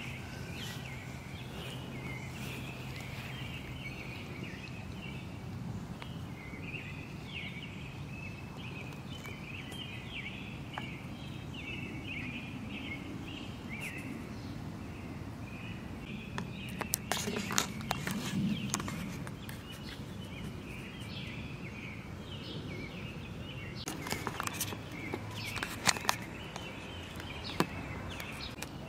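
Outdoor ambience with birds chirping steadily, and footsteps and rustling in two bursts, one a little past the middle and one near the end.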